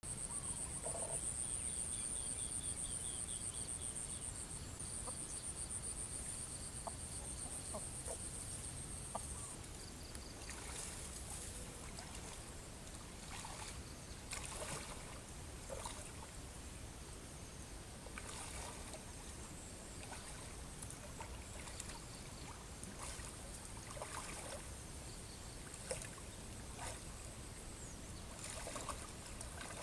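Muddy water splashing and sloshing in irregular strokes as a person wades through a shallow ditch, starting about ten seconds in. Before that, a high, rapidly pulsing trill stands out.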